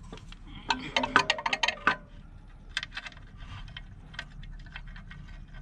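Sharp metallic clicks and clinks of tools and bolts on the truck engine while the alternator is being fitted: a quick cluster of about a dozen clicks about a second in, then a few single clicks.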